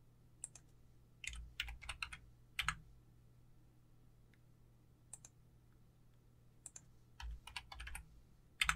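Faint quick clicks of computer mouse buttons and keys, in small clusters of a few clicks each, over a steady low electrical hum.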